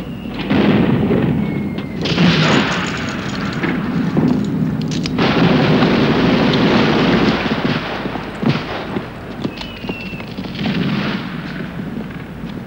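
Explosions and gunfire on a war film's soundtrack: a run of loud blasts with scattered sharp cracks, some blasts starting or cutting off abruptly.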